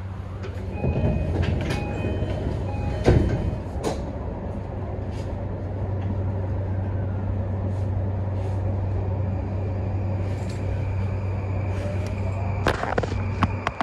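Inside a JR E235-1000 electric train car at a station stop: a steady electrical hum, a short repeated high chime, and the sliding doors shutting with a knock about three seconds in. Near the end a rising whine from the traction motors starts as the train pulls away.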